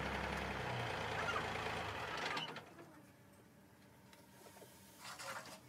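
A motor vehicle engine running steadily, then cutting out about two and a half seconds in; a brief clatter follows near the end.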